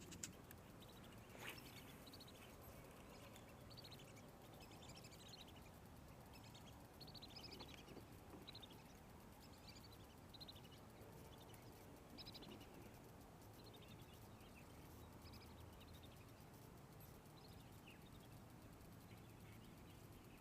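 Faint bird calls, short chirps repeating every second or so, over quiet outdoor ambience, with two light clicks in the first second and a half.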